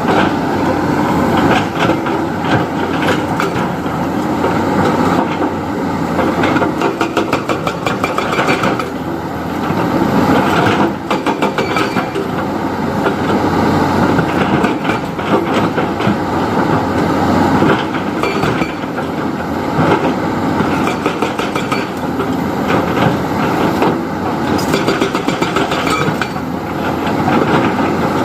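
JCB 3DX backhoe loader's diesel engine running as the machine works, with a steady rapid clatter and repeated knocks of metal parts throughout.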